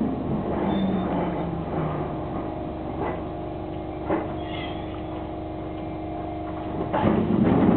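Electric train braking to a stop: a motor whine falling in pitch over the first couple of seconds, then a steady hum from the standing train with two short clicks. Louder, busier noise starts near the end.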